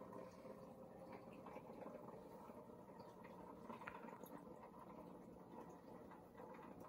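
Faint, steady bubbling of aquarium water, with many tiny pops and ticks.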